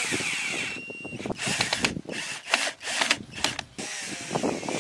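Cordless drill with a Phillips bit driving small screws into PVC. It runs as one longer whine at the start, then in several short bursts.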